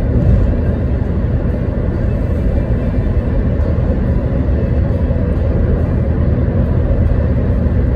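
A steady, loud low rumble with no distinct strokes or tones.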